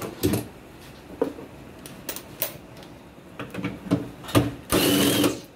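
Metal tools clicking and clanking on a bolt in a car's engine bay, then a cordless impact driver runs in one short burst near the end, working an engine mount bolt.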